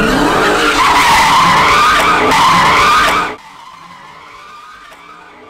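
Dodge Charger's V8 doing a burnout donut: the rear tyres squeal loudly in a wavering pitch over the engine noise. About three seconds in the sound cuts off abruptly, leaving only a faint background.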